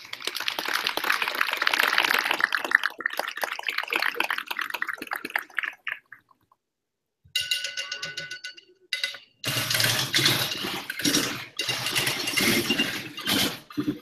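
Wheelbarrows played as percussion: a dense rattling and scraping of strikes on the barrows. Partway through come several steady ringing tones, then more loud rattling, and the sound cuts out suddenly several times.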